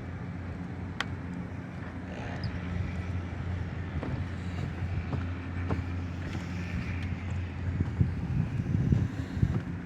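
Steady low mechanical hum, with scattered clicks and a few knocks about eight to nine seconds in.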